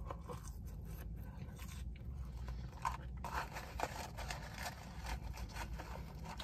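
Close-up chewing of fries, with irregular small crackles and clicks and a couple of louder ones about three and four seconds in, over a low steady hum.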